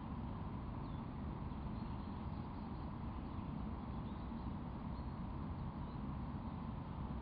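Faint, short, high-pitched calls of a hawfinch fledgling, several scattered through, the thin begging calls of a young bird waiting to be fed. They sit over a steady low rumble.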